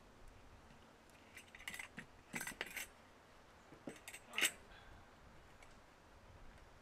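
Faint clicks and light jingling of small hardware being handled as a cord lanyard is tied onto a hollow plastic tank float. They come in a few short clusters, the sharpest about four and a half seconds in.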